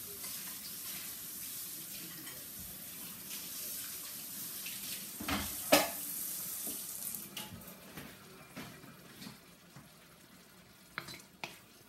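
Kitchen faucet running into a sink, a steady hiss that stops about two thirds of the way through, with one sharp knock a little before the middle.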